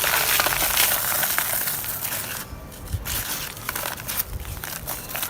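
Dry red dirt chunks being crushed and crumbled, a dense crunching for the first two seconds or so, then scattered crackles as pieces break apart.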